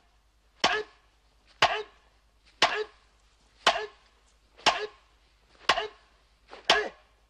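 A steady series of sharp chopping strikes, about one a second, seven in a row, each with a brief ringing tail, in time with repeated overhead sword cuts.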